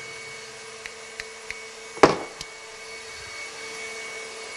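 Stand mixer running steadily with a constant motor whine as it whips heavy cream. A few light clicks, and one sharp knock about two seconds in that is the loudest sound.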